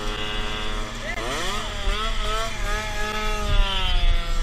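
Small two-stroke motorbike engine revving: its pitch climbs sharply about a second in, then holds high and slowly falls away, over the steady drone of another engine.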